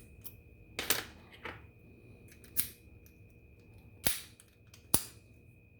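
American Lock 1100 series padlock being locked back up by hand: about five sharp metal clicks and clacks, roughly a second apart, the last one the sharpest.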